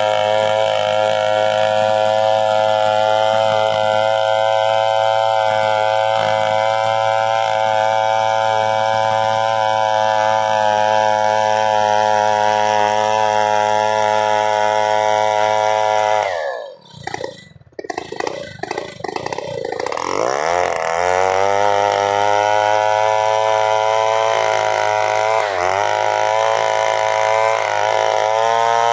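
Chainsaw engine running steadily at high speed. About sixteen seconds in, its speed drops sharply and it goes quiet for a moment, then it revs back up and holds steady again.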